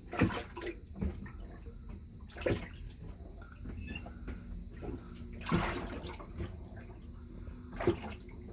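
Water sloshing and splashing in the boat's bilge in about five short bursts, the loudest ones near the start and near the end, over a low steady rumble.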